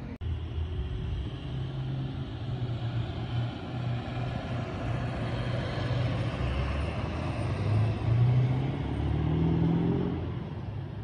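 Pickup truck engine running as the truck drives by. The engine note steps up and down, then rises as it accelerates about nine seconds in.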